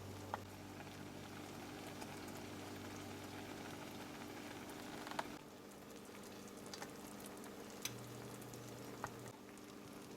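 Food simmering in a frying pan: a faint bubbling hiss with a few scattered sharp pops, over steady low background tones.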